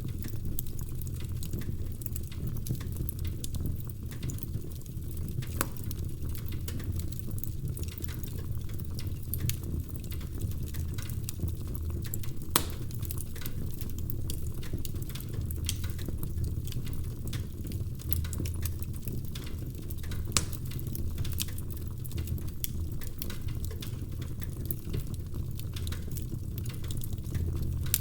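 Wood fire burning in a fireplace: a steady low rumble of flames with irregular crackles and pops from the logs, two sharper pops standing out about halfway through and about two-thirds of the way through.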